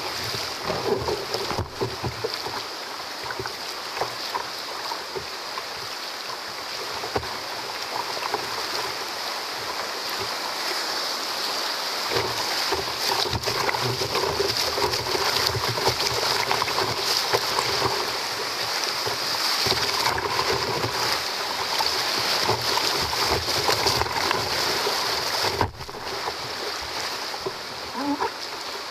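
Flood-high whitewater rapids rushing and splashing against a kayak's bow close to the microphone, with waves breaking over the bow. The rush grows louder through the middle and drops briefly near the end.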